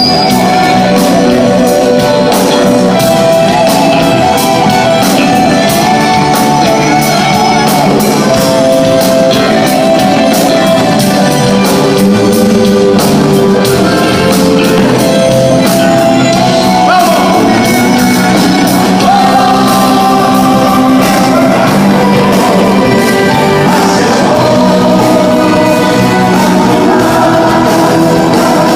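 A live band with a lead singer playing a song loud, with a steady drum beat under the vocals and guitars.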